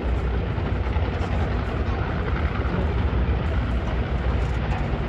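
Nitro Funny Car drag-racing engines running at the starting line, heard from the grandstands as a steady, loud, deep rumble.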